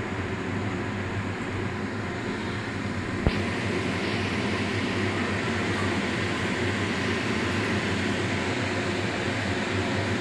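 Steady machine hum with hiss, with one sharp click a little over three seconds in.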